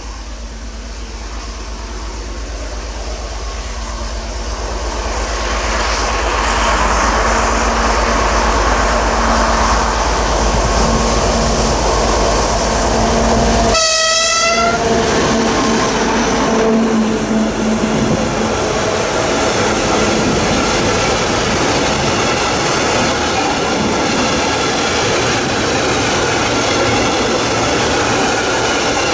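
DB class 233 'Ludmilla' diesel locomotive with its Kolomna V12 engine running under load as it hauls a train up a gradient, growing louder over the first several seconds as it approaches and passes close by about halfway through. Then the empty hopper wagons roll past with a steady rattle and clatter of wheels over the rail joints.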